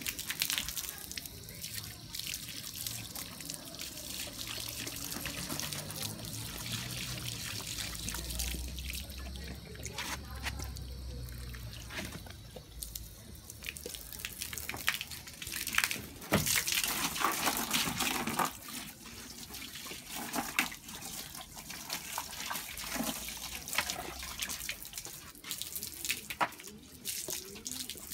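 Water running and splashing steadily, with scattered short clicks and knocks.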